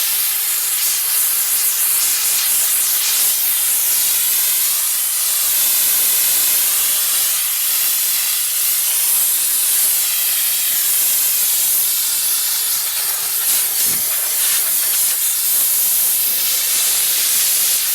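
Steam jetting from a diesel-fuelled steam car washer's spray gun: a steady, loud hiss.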